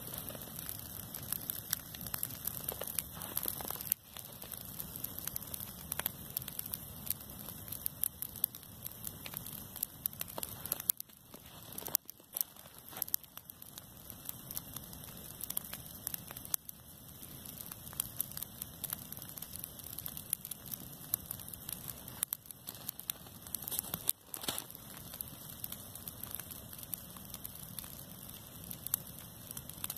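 Dry grass and hay burning in open flame, crackling densely and steadily over a low rushing of the fire. The crackling thins out briefly around the middle and again later on.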